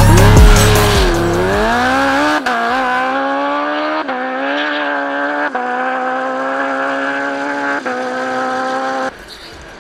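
Drag race car accelerating hard down the quarter-mile, its engine note dipping briefly at each gear change, four times in all. The engine sound cuts off suddenly near the end.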